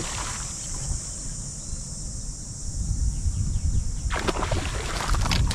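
Hooked tarpon splashing and thrashing at the water's surface, with wind rumbling on the microphone. A splash comes at the start, and a louder run of splashes comes from about four seconds in.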